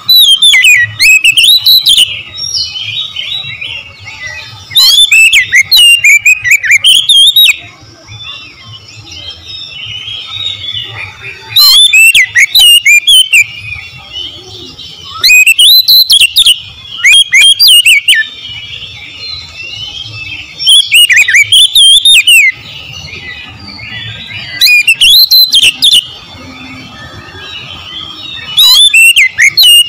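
Oriental magpie-robin singing in loud bursts of rapid, fast-gliding phrases, about seven in all, each a second or two long, with softer twittering between them.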